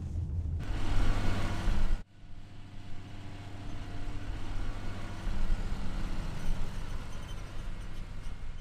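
Farm machinery engine running steadily with a low hum. It cuts off abruptly about two seconds in and comes back at once, quieter, in the next clip.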